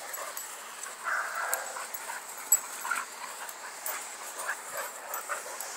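Dogs scuffling, with short whimpers and yips, as two dogs pin and correct an overexcited young dog. A sharp click about two and a half seconds in.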